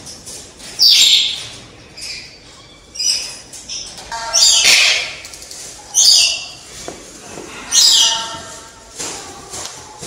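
Wreathed hornbill calling: about five loud calls, one every one to two seconds, with a few weaker ones in between.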